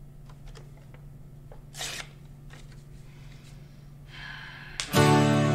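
Quiet room tone with a steady low hum, a few faint clicks and one short rustling noise about two seconds in. Near the end, guitar music starts abruptly and loudly.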